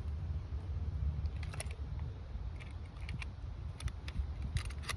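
Scattered small clicks and rattles from a handheld digital fish scale being handled and hooked onto a bass, over a low rumble.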